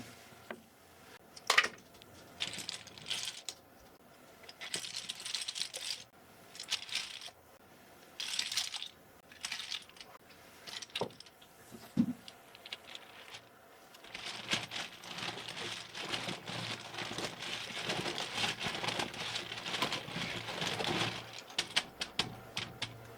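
Plastic keyboard keycaps clicking and clattering as they are handled, with stretches of steady scrubbing hiss, the longest in the second half.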